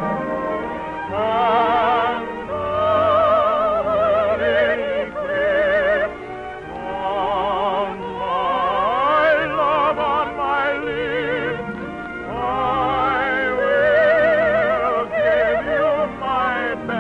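Soprano singing in operatic style with a wide vibrato on long held notes, over orchestral accompaniment. There are short breaths between phrases, about six and twelve seconds in.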